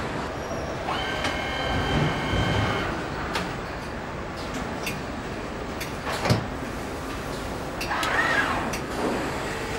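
Automated engine assembly-line machinery running over a steady factory hum. A machine whine holds for about two seconds early on, clicks and a sharp metallic knock come about six seconds in, and a whine rises and falls near the end.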